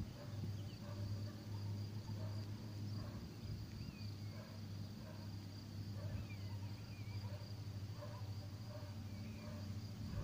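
Faint rural ambience: insects buzzing in a steady high band, with a few short bird chirps and a low steady hum underneath.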